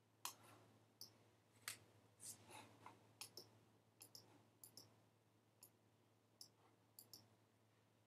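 Faint, irregular clicking: about fifteen sharp clicks, many in quick pairs, stopping about a second before the end, over a low steady hum.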